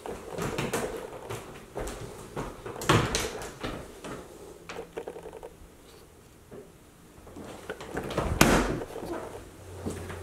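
Knocks and clatters of interior doors being opened and shut, among them a closet door, in a small room. There is a burst of clatter about three seconds in and the loudest near the end.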